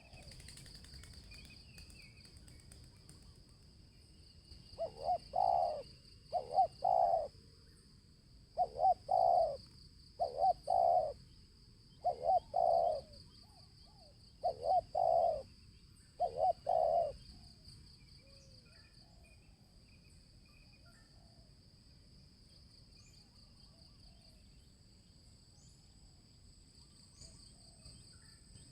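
Spotted dove cooing: seven two-note coos, a short note then a longer one, spread over about twelve seconds, then stopping. A steady high insect chirring runs underneath.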